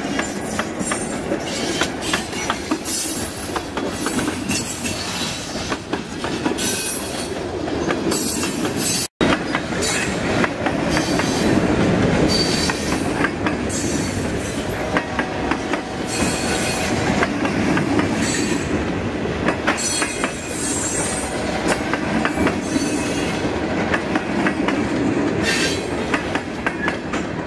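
Loaded freight cars (covered hoppers, a tank car and gondolas) rolling past close by at speed: a steady rumble of steel wheels on rail, with clacking over the rail joints and occasional wheel squeal. The sound cuts out for an instant about nine seconds in.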